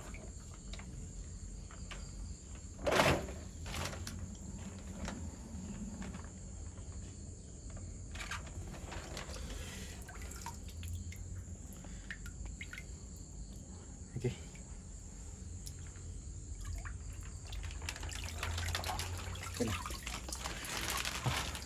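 Faint water sloshing and trickling as fish are let out of a plastic bag into a water tank, with a louder bump about three seconds in and a few soft knocks later.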